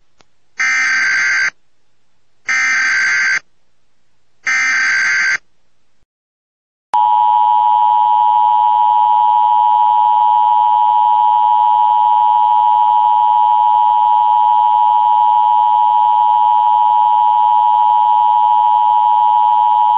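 Emergency Alert System tones: three one-second bursts of warbling SAME header data, about two seconds apart, then from about seven seconds in the loud, steady two-tone EAS attention signal (853 and 960 Hz sounding together), which runs on without a break.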